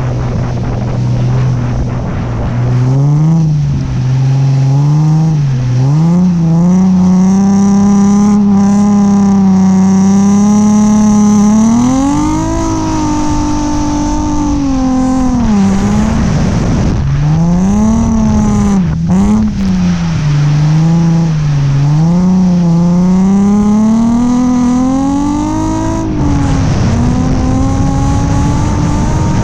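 Nissan 350Z's V6 engine revving hard through a drift run: the pitch climbs and is held high for several seconds, dips and rises repeatedly with the throttle, drops sharply late on, then climbs again.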